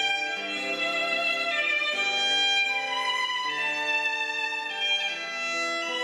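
Background music: a violin playing a slow melody of held notes.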